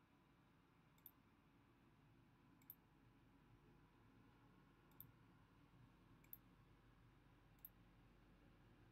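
Five faint, sharp computer mouse clicks, one to two seconds apart, over faint low background noise.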